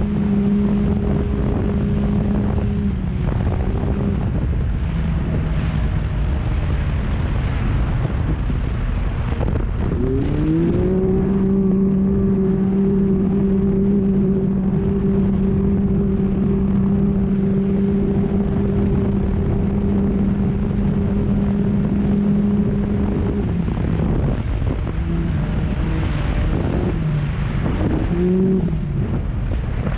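Off-road race vehicle's engine heard onboard at speed, with a dense rumble of wind and ride noise underneath. The engine note dips about three seconds in, climbs about ten seconds in and holds steady at high revs for some twelve seconds, then falls and rises in short blips near the end.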